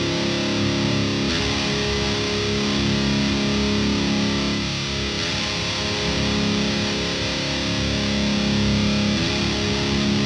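Distorted electric guitar played through the Lichtlaerm Amber Spyglass reverb pedal: sustained chords held and ringing out steadily, with no gaps.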